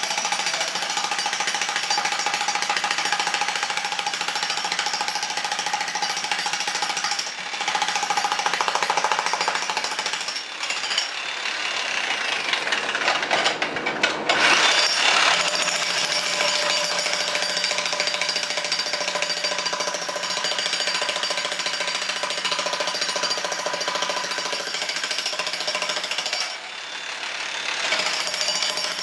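Two electric demolition hammers, a 15 kg Hilti TE 1500 and a 30 kg DeWalt breaker, running together with their chisel points hammering into concrete blocks. A dense, steady hammering with a few brief dips in level and a louder stretch about halfway through.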